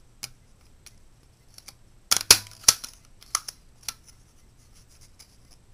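Desk stapler driving staples through a thin aluminium strip cut from a soda can, with a few sharp clacks about two seconds in as the loudest sounds. Lighter clicks of the can pieces being handled come before and after.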